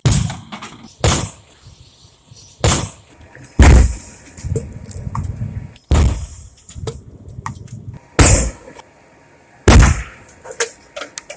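Explosions from a burning washing machine packed with spray paint cans and gasoline: about seven sharp blasts one after another, one to two seconds apart. The heaviest comes a few seconds in with a deep boom, and a few small cracks follow near the end.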